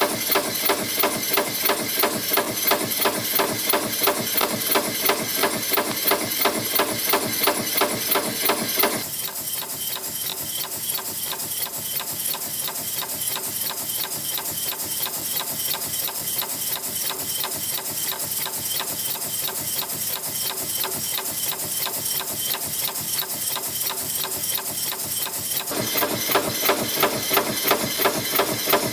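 CNC wire and strip spring forming machine (YHM FB-210A) running, its press and forming tools striking in a steady rhythm of about three strokes a second as it forms 0.2 x 0.7 mm spring clips. The strokes grow softer and duller about a third of the way in and come back louder near the end.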